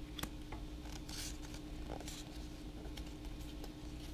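A small stack of Pokémon trading cards handled and rearranged in the hands: light sliding swishes and a few soft clicks as the cards rub past each other, over a faint steady hum.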